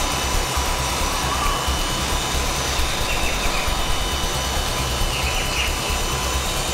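WLtoys V912 four-channel RC helicopter in low flight: steady whine of its electric motors with the rush of the spinning rotor blades, holding an even level throughout.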